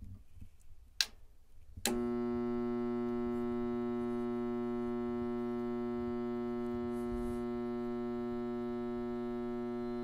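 A click, then just before two seconds in a Goodman high-efficiency furnace starts a loud, steady electrical buzz with no sound of air moving. The buzz is the sign of a failed draft inducer motor: it gets power but does not spin, so the board flags the pressure switch as stuck open.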